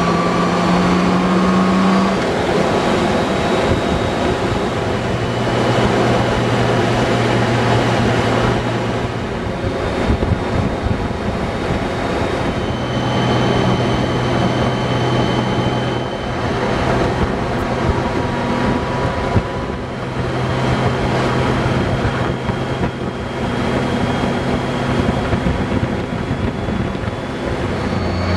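Honda Goldwing motorcycle engine running at road speed, its low tone shifting pitch a few times, with wind rushing over the microphone.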